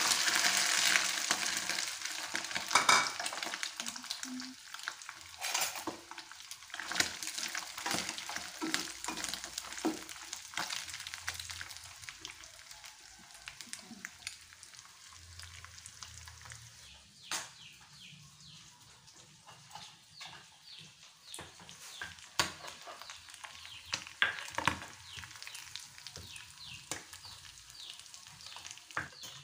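Shredded salted fish frying in hot oil in a wok. A loud sizzle at the start dies down over about ten seconds and leaves scattered crackling and popping. Near the end a stone pestle knocks and grinds in a stone mortar.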